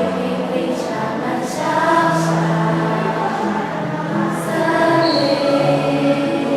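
A choir singing a slow song, several voices holding long notes together.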